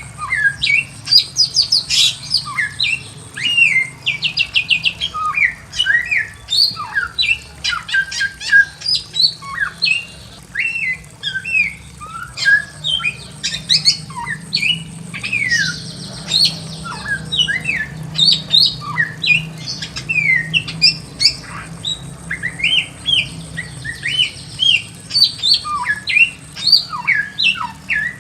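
Bare-throated whistler (samyong) singing a fast, unbroken stream of short sweeping whistled notes, with brief rattling trills mixed in.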